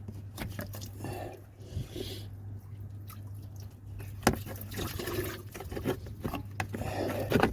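Engine coolant trickling and dripping from a disconnected thermostat hose into a bucket, with a few sharp knocks as the hose is handled; only a little coolant comes out.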